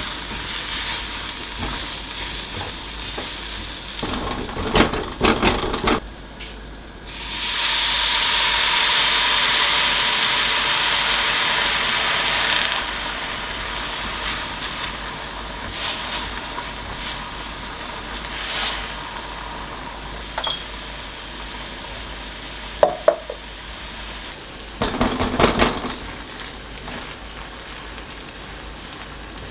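Food frying in a pan: a steady sizzle, with the scrape and clatter of a utensil stirring it in short spells. About seven seconds in the sizzling jumps much louder for about six seconds, then settles back.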